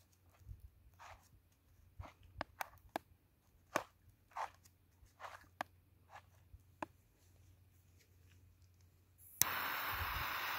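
Gloved hands handling a firework tube on a plastic base plate, with a scatter of soft scrapes and clicks. About nine seconds in, a jet lighter clicks on and hisses steadily as it is held to the fuse.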